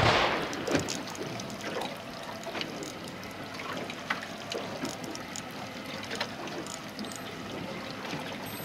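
Water lapping and splashing against the hull of a small fishing boat, with scattered small ticks and knocks. A loud rush at the very start fades out within the first second.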